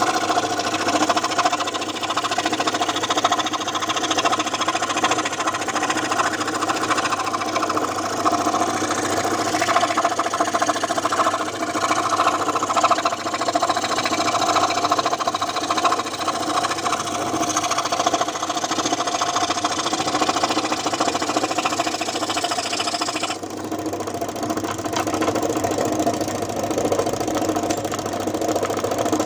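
Home-built scroll saw running steadily, its blade buzzing in a continuous machine drone. About three-quarters of the way through, the hissy upper part of the sound drops away while the motor keeps running.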